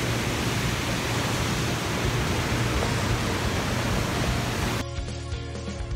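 Steady rushing of a waterfall's white water. About five seconds in it cuts off abruptly and background music takes over.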